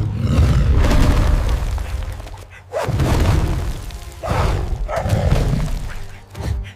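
Deep, booming cinematic rumbles in three long swells, with music underneath.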